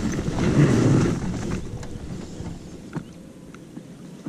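Wind on the microphone, loudest in the first second and a half, then easing, with scattered light knocks of fishing gear being handled in a small boat.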